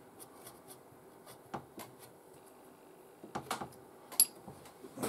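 Faint handling noises: light rubbing and scattered small taps on the workpiece, with one sharp click that rings briefly a little after four seconds in.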